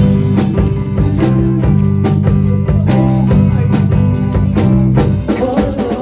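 Gospel worship music played live: keyboard over heavy held bass notes, with drums keeping a steady beat.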